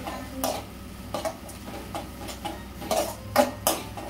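A steel spoon scraping and clinking against a metal kadai as sliced onions and capsicum are stirred, in irregular strokes, the loudest three close together near the end.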